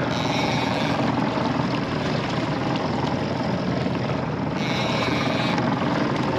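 Twin Yamaha 150 outboard motors running steadily at trolling speed, with an even rush of wind and water noise that does not let up.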